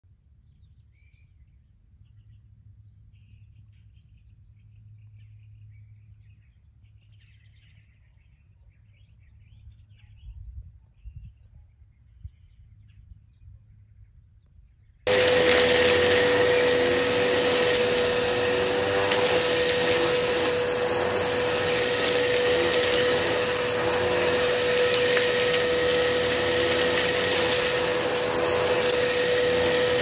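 Quiet outdoor ambience with faint bird chirps and a few light knocks, then about halfway through a Hoover PowerMAX Cyclonic upright vacuum cleaner starts abruptly and runs loud and steady with a high whine, vacuuming sand off a carpet. Its owner found it had no suction, though it was not clogged.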